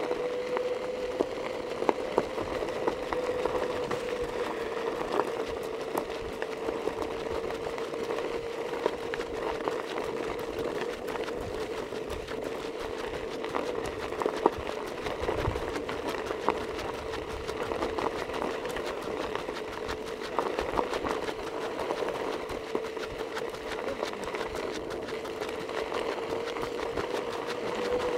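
A small motor running steadily: a constant whine with many light, fast ticks over it.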